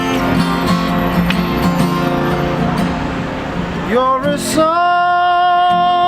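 Acoustic guitar strumming chords. About four seconds in, a voice comes in singing, gliding up into one long held note over the guitar.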